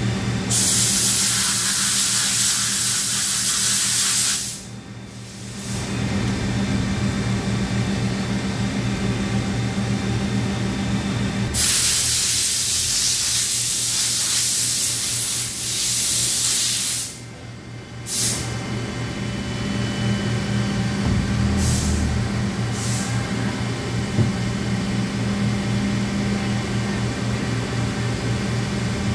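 Johnford HT-60-2D CNC lathe running with a steady low machine hum. It is broken twice by several seconds of loud hissing, each spell ending in a brief dip in level, while the lower turret travels along the bed.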